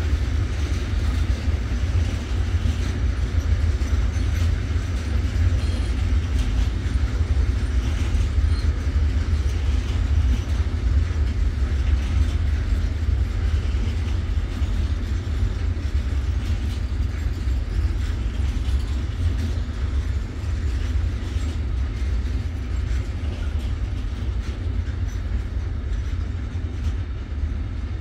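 Intermodal freight train of pocket wagons carrying semi-trailers rolling steadily past, its wheels running over the rails in a continuous, even rolling noise.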